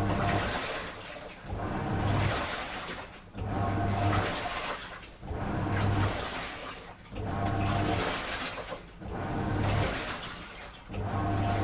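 Washing machine agitating on a strong wash cycle: the drum turns in regular surges about every two seconds, water and laundry sloshing over a low motor hum, with a short lull between strokes.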